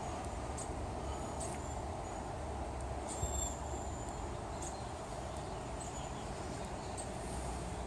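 Outdoor background: a steady low rumble and hiss, with short, faint high chirps of small birds now and then.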